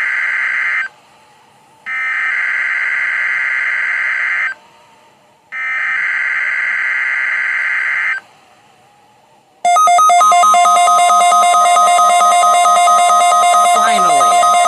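NOAA Weather Radio SAME digital header for a Required Weekly Test: three screeching data bursts, each about two and a half seconds long with a one-second gap between them. About ten seconds in, the WR-300 weather radio activates and sounds a continuous loud, buzzy electronic alert tone.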